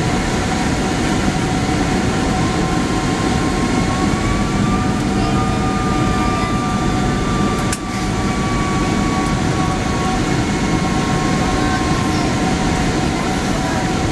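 Steady cabin roar of a Boeing 767 in flight, heard at a window seat beside its Rolls-Royce RB211 engine, with a thin engine whine that rises a little and sinks back again. A short click about eight seconds in.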